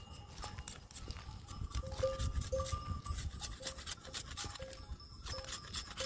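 A knife whittling a wooden stick in repeated short scraping strokes, with goats and sheep of the grazing flock calling now and then in short, repeated cries from about two seconds in.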